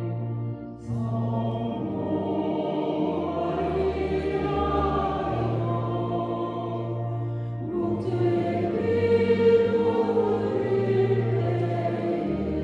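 Congregation singing a Korean Catholic Marian hymn in unison, over steady held low notes, with a short break between phrases about half a second in.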